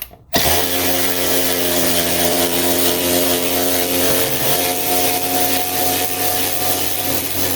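DeWalt DCF504 12V cordless ratchet running in reverse, backing a lag screw out of wood with a little struggle. The motor starts abruptly about a third of a second in and then runs at a steady pitch.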